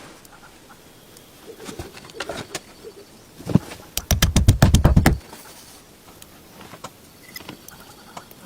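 Mechanical handling sounds: scattered light knocks and clicks, then a loud, rapid run of clicks, about ten a second, lasting just over a second, about four seconds in.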